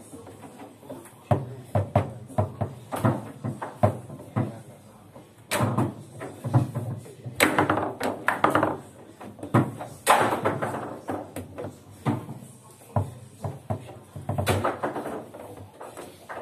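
Foosball table in play: irregular sharp knocks and clacks as the figures on the rods strike the ball and the ball rebounds off the table walls, some in quick clusters.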